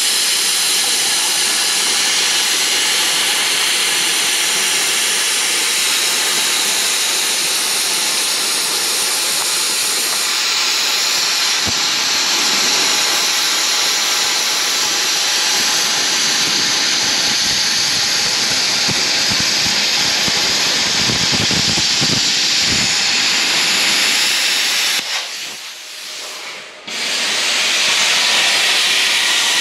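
Hand-held plasma cutter cutting through steel plate: a loud, steady hiss of the arc and air jet. The hiss drops away briefly about 25 seconds in, then starts up again.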